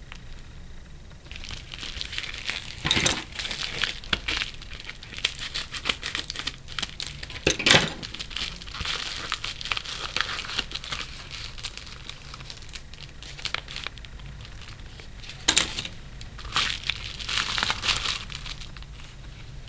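Paper mail packaging being handled and opened by hand: irregular crinkling and tearing, with louder sharp crackles about three, eight and fifteen seconds in.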